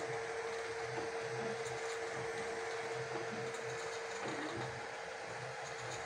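FLsun Super Racer delta 3D printer running a print: a steady hum with one constant tone, under short, irregular low whirs as the print head moves.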